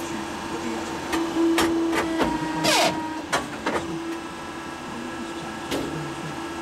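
Polar 92 EM paper guillotine cutter running with a steady hum, with a string of sharp mechanical clicks and clunks. About two and a half seconds in, a louder short burst of noise comes with a falling whine.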